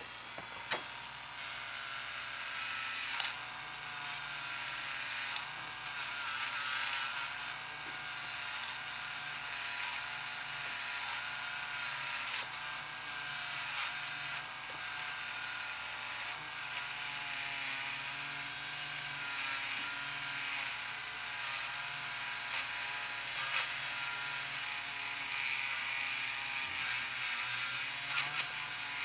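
Proxxon rotary tool running steadily with a wire brush scrubbing leftover paint off a die-cast metal toy body: a wavering motor whine under a scratchy hiss.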